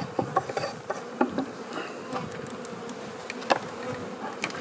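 Honey bees buzzing in a steady hum around an opened colony, with a few sharp clicks and knocks, the loudest about three and a half seconds in.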